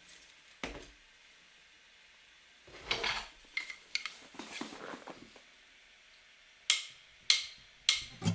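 Light metallic clinks and knocks from steel parts or tools being handled: about ten separate strikes, some in quick pairs, with short ringing after the sharper ones.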